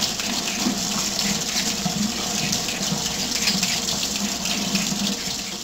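A small Victorinox Swiss Army knife blade being sharpened, with rapid, continuous scraping strokes of steel against a sharpener.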